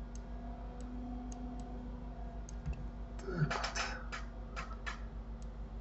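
Scattered light clicks of a computer mouse and keyboard during on-screen work, with a quicker cluster of clicks about three and a half seconds in, over a faint steady electrical hum.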